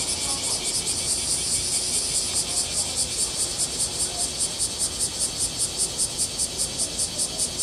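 Insects chirping in a steady, high-pitched rhythm of about five or six pulses a second.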